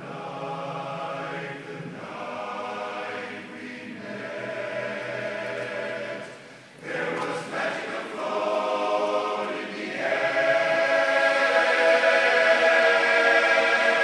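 Large men's barbershop chorus singing a cappella in close harmony, in phrases with short breaths between them, swelling into a loud held chord about ten seconds in.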